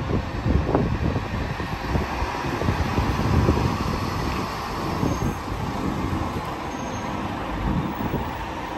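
City bus pulling away from the stop and driving past, its engine running under acceleration, loudest in the first few seconds and lower once it has passed.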